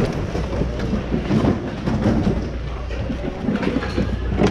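Wheeled shopping carts rattling as they roll over a hard floor, with goods clattering and knocking against each other, over a steady low hum.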